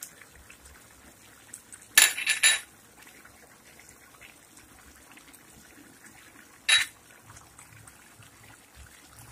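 A glass bowl and kitchenware clinking against a frying pan as chopped spring onions are tipped in: three quick sharp clinks about two seconds in, then one more near seven seconds, with a faint steady hiss between them.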